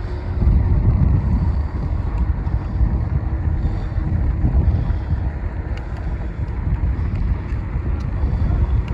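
Wind buffeting the microphone of a moving bicycle rider: a steady low rumble.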